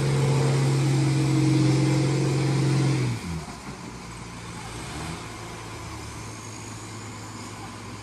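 Heavy diesel engine running hard at a steady pitch. About three seconds in it drops abruptly and a lower, quieter engine sound carries on idling.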